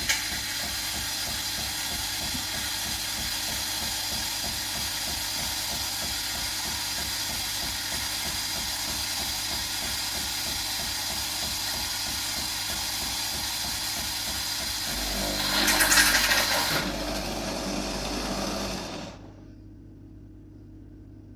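Philips 2300 bean-to-cup coffee machine frothing milk for a cappuccino: its pump runs with a steady fast-pulsing buzz and a hiss of steam and milk. About 15 seconds in the sound changes and swells with a hiss, then stops about 19 seconds in.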